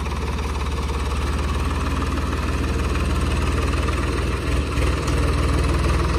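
Swaraj 855 FE tractor's diesel engine running steadily at low revs as the tractor reverses up to a trolley to hitch it, its note briefly uneven about four and a half seconds in.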